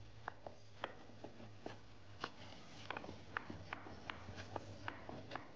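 Wooden rolling pin knocking and clicking lightly on a wooden board as a bun wrapper is rolled out and turned, a few faint irregular knocks a second, over a faint steady low hum.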